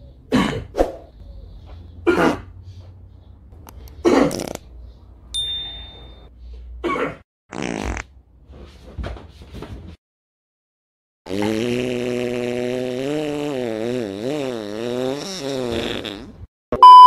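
Cartoon fart sound effects: a few short farts in the first eight seconds, then one long wavering fart lasting about five seconds.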